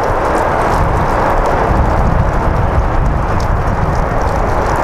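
Strong wind buffeting the microphone: a loud, steady rushing and rumbling noise with no distinct pitch.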